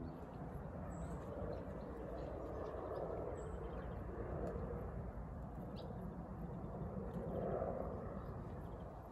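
Outdoor background noise: a steady low rush that swells twice, with a few faint, short bird chirps.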